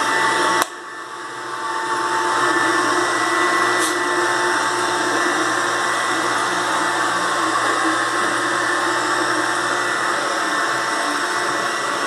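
Robot vacuum cleaner running: a steady whirring hum with a high whine from its fan and brushes. It cuts off abruptly about half a second in and builds back up over the next second or so.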